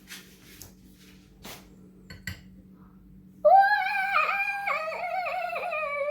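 A few faint clicks of handling, then, from about three and a half seconds in, a high voice singing a wordless, wavering tune, much louder than the clicks.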